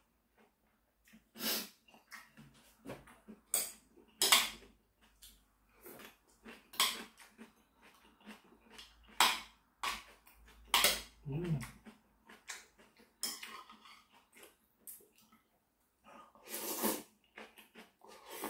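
Close-up eating sounds of a person eating instant ramen: chewing and slurping noodles and broth in short bursts, with metal chopsticks clicking against the plate and bowl, and a longer slurp of noodles near the end.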